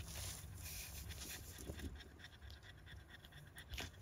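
Faint panting from a nursing French bulldog mother, with light rustling on the whelping pad and a soft click near the end.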